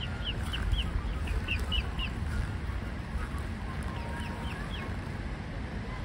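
Young swans (grey cygnets) peeping: runs of short, high calls, several a second, through the first two seconds and again about four seconds in, over a low wind rumble on the microphone.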